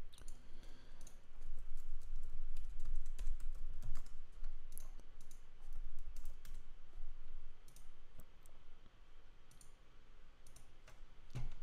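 Irregular clicking of a computer mouse and keyboard.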